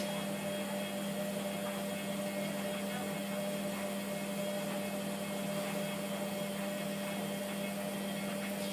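Hotpoint Aquarius WMF720P washing machine running early in a wash cycle: a steady, even hum with a constant low tone.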